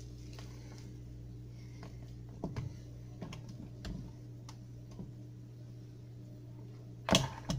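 Spatula scraping and tapping against a mixing bowl of cheesecake batter: scattered light clicks and taps, with a louder clatter about seven seconds in, over a steady low hum.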